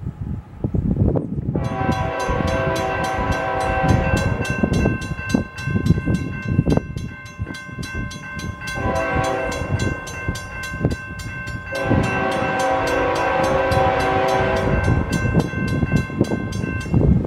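Grade-crossing bell starting to ring with rapid, even strikes while the horn of an approaching CSX Tier 4 locomotive sounds several long blasts for the crossing. Wind buffets the microphone underneath.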